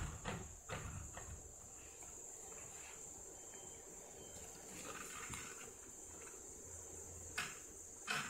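Small hands slapping a glass door: a few quick slaps in the first second and two more near the end, over a steady high-pitched whine.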